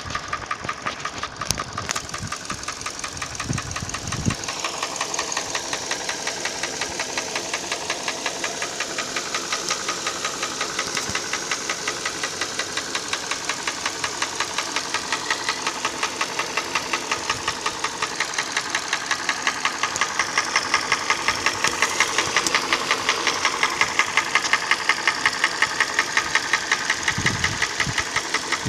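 Hyundai ix35 petrol engine running with a steady, regular knock from the engine, of a cause the owner does not know. The knock grows louder about two-thirds of the way in.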